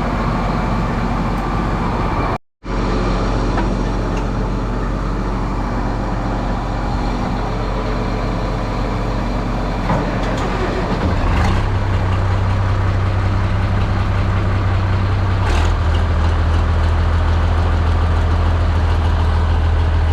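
Tractor engine running steadily, then picking up speed and growing louder about halfway through as it warms up.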